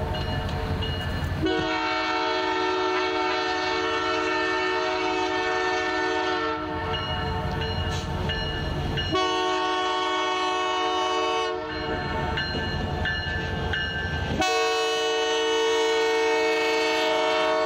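Diesel locomotive's multi-chime air horn sounding three times: a long blast of about five seconds, a shorter one, then another long one that is still going at the end. Between the blasts there is the low rumble of the approaching train.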